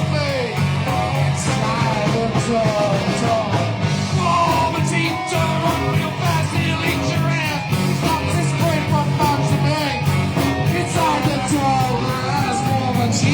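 Rock band playing live, with a steady drum beat, bass and wavering guitar or vocal lines.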